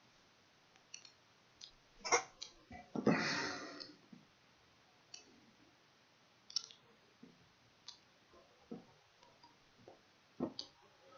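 Faint scattered clicks in a small room. About three seconds in comes a louder, breathy rush of noise lasting about a second, like an exhale close to the microphone.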